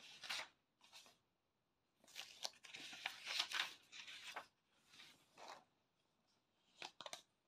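Paper pages of a book being leafed through, with several short rustles and one longer stretch of rustling in the middle.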